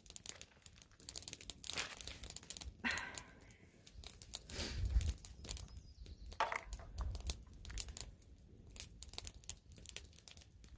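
Clear plastic zip-top bag crinkling and rustling in irregular crackles as hands rub seasoning into a raw steak inside it.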